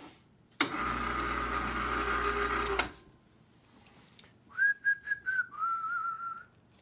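A small motor runs steadily for about two seconds. A few seconds in, a person whistles briefly: one held note, then a slightly lower, wavering note.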